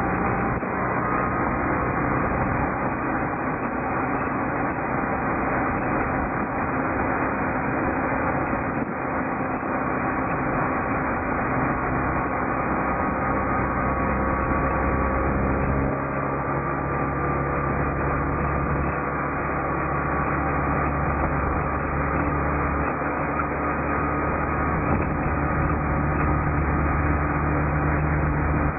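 Towing vehicle's engine running at road speed, with tyre and wind noise, as a steady rush; the engine note shifts a couple of times along the way.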